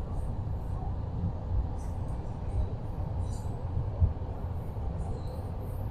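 Steady low rumble of a moving passenger train heard from inside the compartment, with faint scattered ticks and a short knock about four seconds in.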